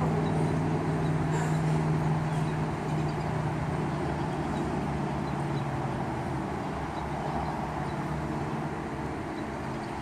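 A motor running steadily: a constant low drone over a background rush, slowly getting quieter.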